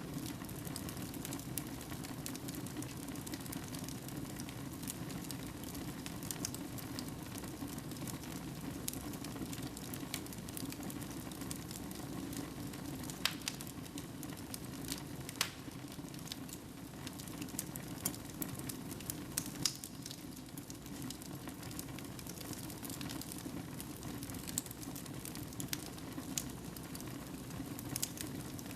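Wood fire burning in a fireplace: a steady low rush of flame with scattered crackles and a few sharper pops.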